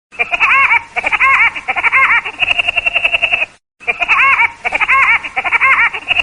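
A bird calling in a laughter-like series of rapid, arching, chattering notes, then a steadier run of notes. The same call sequence plays twice, with a brief gap between.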